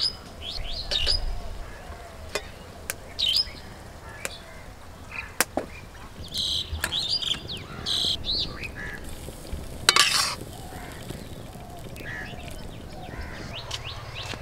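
Small birds chirping in short high calls, with a metal spoon clinking and scraping against a steel wok and bowl, and one louder clatter about ten seconds in.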